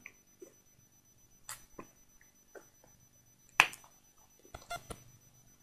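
Faint, scattered sticky clicks and squelches from hands working a goo toy into its container, with one sharper snap about three and a half seconds in.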